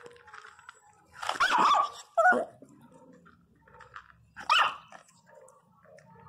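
Small pinscher dog giving angry barks while sharing a food bowl with other dogs: a longer bark about a second in, a short one just after two seconds, and another at about four and a half seconds.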